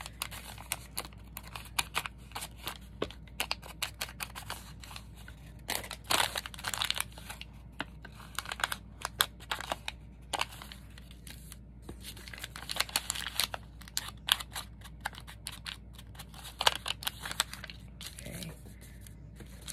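Thin paper being scrunched and worked in the hands, crisp crinkling and crackling in irregular bursts as the sheet is distressed to look beaten up.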